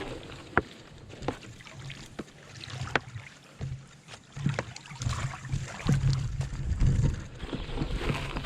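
Small waves lapping and splashing at the reservoir shore, with scattered sharp splashes, and wind gusting on the microphone from about halfway through.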